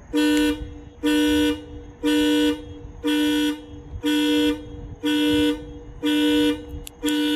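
Hella Supertone twin horns, low and high tone together, honking in the repeating panic-alarm pattern: eight short, evenly spaced blasts about one a second. Heard from off to the side, where they measure about 80 decibels.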